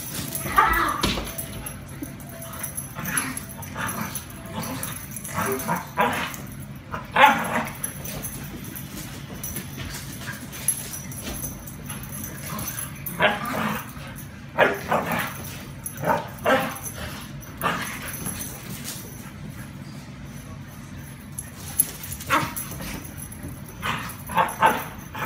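A Border Collie and a Yorkshire terrier play-fighting, barking in short bursts, several in quick succession, with quieter gaps between the clusters.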